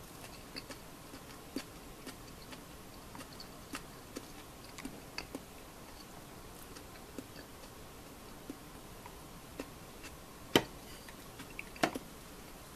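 Light, scattered clicks and taps of things being handled at a dinner table, with two louder knocks near the end.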